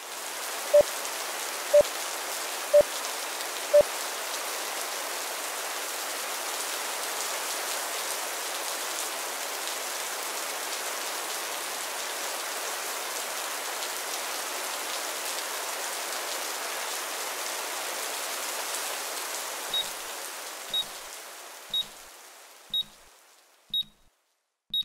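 Steady rain hissing, fading out over the last few seconds. Short countdown-timer beeps about one a second: five lower beeps near the start, and six higher beeps in the closing seconds.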